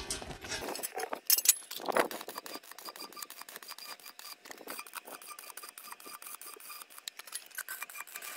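Stick welding on steel square tubing: the arc crackles and sizzles steadily and fast. A few sharp metal clinks come in the first two seconds, before the crackle settles in.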